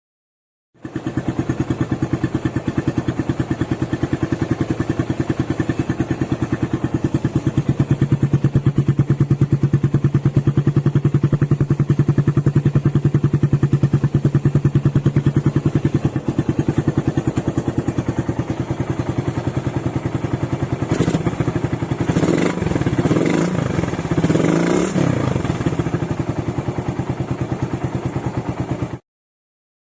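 Single-cylinder motorcycle engine through its stock exhaust, idling with a steady pulsing beat. Several quick throttle blips come about three-quarters of the way through before it settles back to idle. The sound cuts off suddenly just before the end.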